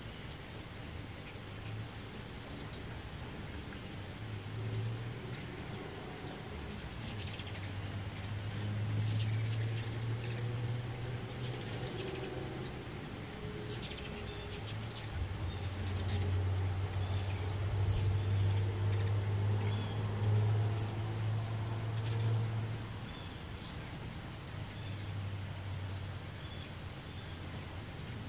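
Ruby-throated hummingbirds hovering at a feeder: a low buzzing wing hum that swells and fades as they come and go, with short high squeaky chip calls, over a light patter of rain.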